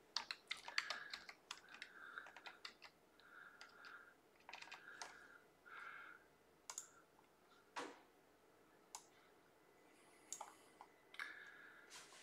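Near silence with faint, scattered computer keyboard and mouse clicks, irregular taps with one sharper click about two-thirds of the way through.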